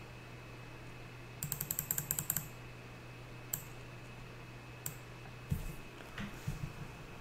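Clicking of computer keys and mouse while scrolling through a drop-down list. There is a quick run of about ten clicks about a second and a half in, then single clicks and short clusters of clicks, over a faint steady hum.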